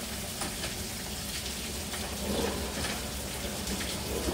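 Fluid running out of the bus engine in a steady, splashing stream, spilling during the oil cooler job.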